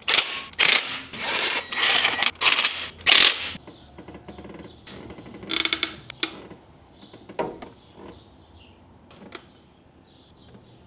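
Hand ratchet clicking through several quick swings while tightening bolts on the engine's upper intake. Another short run comes about halfway through, then a few light clicks.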